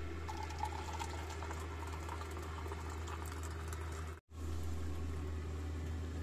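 Water boiling for tea, a bubbling hiss with small ticks over a steady low hum. The sound breaks off for a moment about four seconds in.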